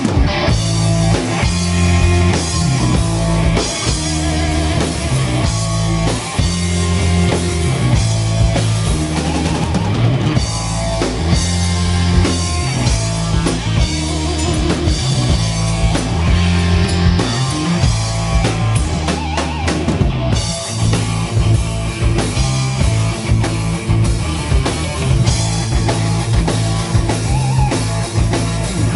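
Live rock band playing: a drum kit with bass drum, electric guitars and a low bass line changing note in steady blocks.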